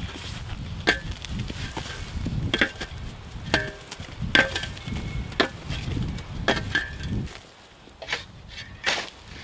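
Steel shovel blade chopping and tamping clay soil, packing it in around a culvert, with a sharp strike about once a second, several with a short metallic ring. A low wind rumble runs underneath.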